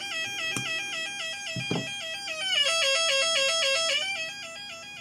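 Electronic siren tone from the finished Elenco AK-100 learn-to-solder kit's speaker, warbling quickly between two pitches. About two and a half seconds in it shifts lower and gets louder as the volume is adjusted, then drops back near the end.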